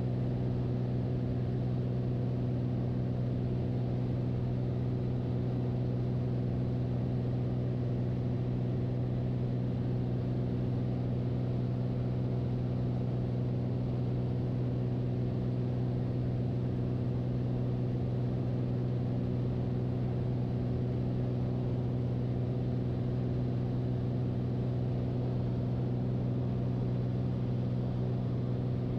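Beechcraft Bonanza's single piston engine and propeller droning steadily in cruise: an even, low hum made of several fixed tones that does not change.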